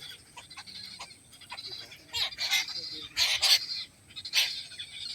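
Birds calling: several loud, harsh squawks about two, three and four seconds in, over fainter chirping.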